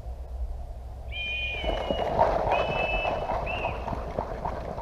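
A high two-toned game-start signal sounds three times, one long, one shorter and one brief, as a paintball team breaks out of its start area; running footsteps and rattling gear follow.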